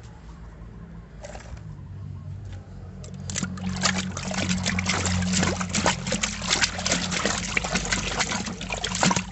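A hand sloshing and swishing a plastic toy about in a basin of muddy water, the splashing becoming busy and continuous about three seconds in.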